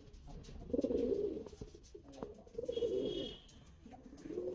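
Domestic pigeons cooing: three low coos about a second and a half apart.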